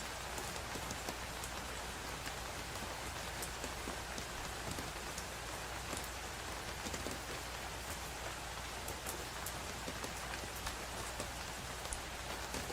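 Steady rainfall: an even hiss of rain with scattered sharp drop ticks on a surface.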